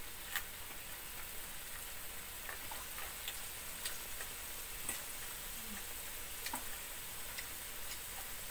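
Ground chilli, ginger and turmeric spice paste frying in oil in a wok: a steady sizzle with scattered sharp pops and crackles as the paste spatters.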